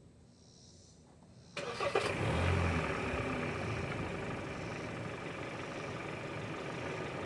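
A motor starts abruptly about one and a half seconds in, surges briefly, then runs steadily.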